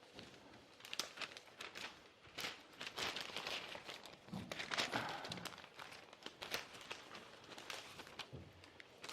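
Newspaper pages being rustled and turned, a run of irregular paper crackles while the right page is looked for.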